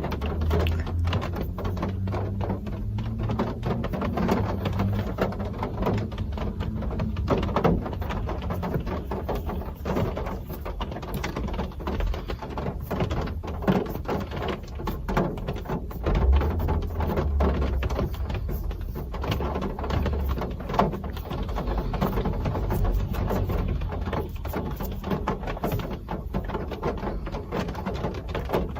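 Real rain falling steadily: a dense scatter of close drops ticking over a constant hiss, with a low rumble underneath.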